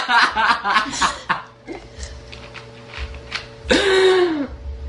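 Laughter and chatter, then about four seconds in a girl's loud burp lasting under a second, its pitch falling away.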